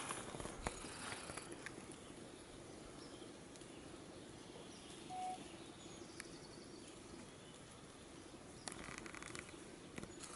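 Quiet woodland ambience: a faint steady hiss with scattered small clicks and rustles, a short single tone about five seconds in, and a brief crackling rustle near the end.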